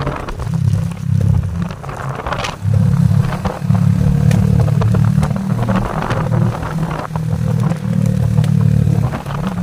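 Motorcycle engine running while riding downhill, heard from on the bike; its low note rises and falls in steps as the throttle opens and closes.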